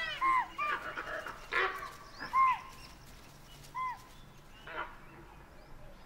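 Short animal calls, each rising then falling, repeated about five times, during a tiger's attack on a sambar deer fawn. A louder sudden noise comes about two and a half seconds in.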